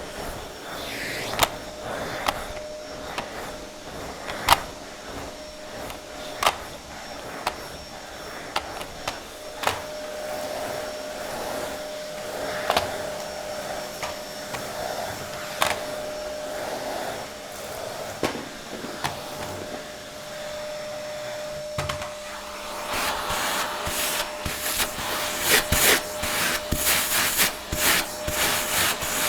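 Vacuum cleaner running in use: a steady motor hum with a whining tone, broken by scattered sharp clicks. About three-quarters of the way in it grows louder, with a denser rush of air and rapid clicking.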